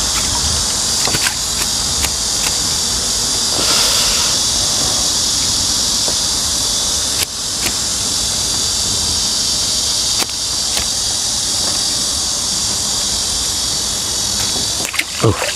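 Steady, loud chorus of cicadas, a dense high hiss with no break, with a few sharp clicks over it.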